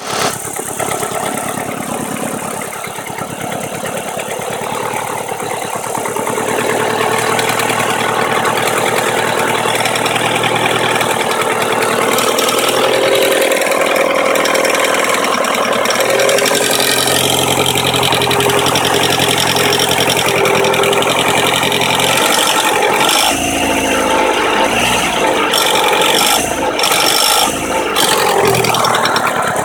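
1.8T turbocharged four-cylinder engine running, with a knock from its hydraulic timing-belt tensioner, which the owner takes for a faulty tensioner.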